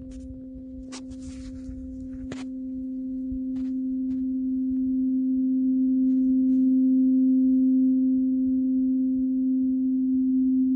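Large steel tuning fork ringing: one steady low hum with a fainter overtone an octave above, growing louder over the first several seconds and then holding. Two faint clicks sound in the first few seconds.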